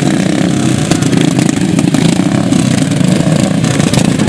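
Engines of several racing ride-on lawn mowers running together at idle, a steady sound.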